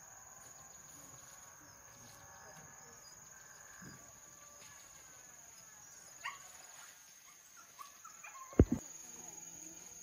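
Insects chirring steadily in the background, with a few short sharp sounds about six to eight seconds in and two loud knocks in quick succession near the end.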